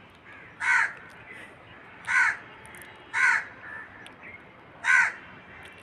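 A bird calling: four short calls spaced about one to one and a half seconds apart.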